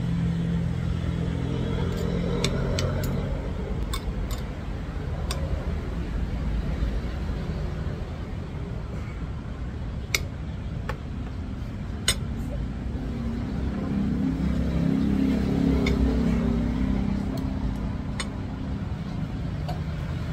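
Spoon and fork clinking against a ceramic plate a dozen or so times, short sharp clicks scattered through, the loudest about halfway, over a steady low background rumble.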